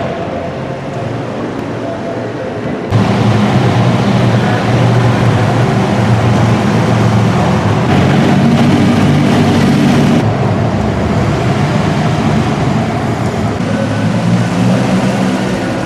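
Classic British sports-car engines driving through a concrete parking garage. The sound jumps up sharply about three seconds in, and an engine climbs in pitch as it accelerates around eight to ten seconds in, then eases off.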